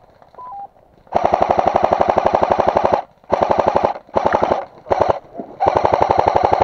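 Airsoft replica firing full-auto: five bursts of rapid automatic fire, the first about two seconds long, the rest shorter.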